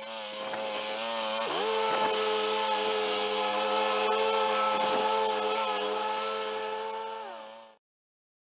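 John Deere zero-turn riding mower engine running steadily as the mower is driven across grass, with a hiss over the engine note. The engine pitch dips sharply about a second and a half in and again around five seconds, then falls near the end before the sound cuts off.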